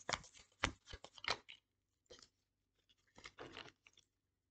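Tarot cards being shuffled by hand: a quick run of short papery card snaps and slaps in the first second and a half, a single one near two seconds, and a longer rustle of cards about three and a half seconds in.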